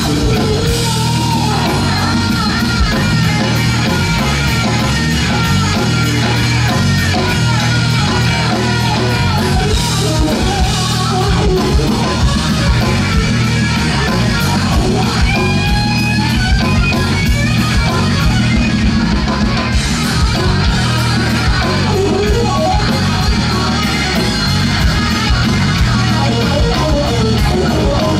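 Live rock band playing: an electric guitar lead with bent, wavering notes over bass guitar and drums.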